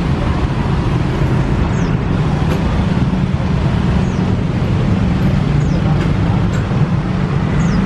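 Boeing 737-800's CFM56-7B turbofan engines at takeoff power, a loud steady deep rumble heard from behind as the airliner rolls away down the runway. A few faint short high chirps sound over it.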